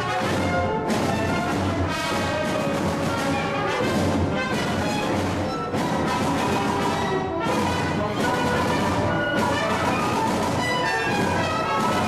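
Contemporary classical music for ensemble: dense sustained chords, with sharp new attacks every second or two.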